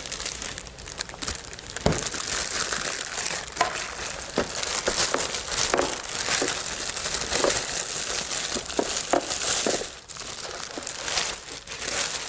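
Packaging crinkling and rustling as it is handled and unwrapped during an unboxing, with scattered sharp clicks and knocks.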